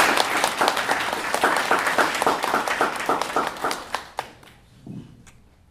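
Audience applauding, a dense patter of many hands clapping that dies away about four seconds in, followed by a few stray claps.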